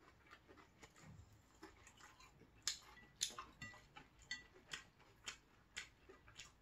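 Faint eating sounds: short, sharp clicks that come about twice a second from a little before the middle onward.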